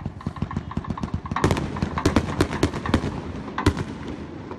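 Rapid barrage of aerial fireworks: many sharp pops and bangs in quick succession, several a second, growing denser and louder about a second and a half in, then tailing off near the end.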